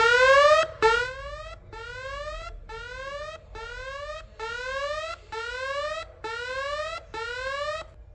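Electronic alarm library sound effect (Hollywoodedge "Alarm 2 Contemporary"): nine rising whooping tones, about one a second, with short gaps between them. The first two are the loudest and the rest are somewhat quieter.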